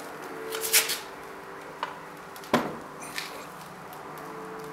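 Breaker bar with a 14 mm socket on a Kawasaki KLR 650's cylinder head bolt being pulled to break the bolt loose: a few metallic clicks and knocks, the loudest about two and a half seconds in, over a steady low hum.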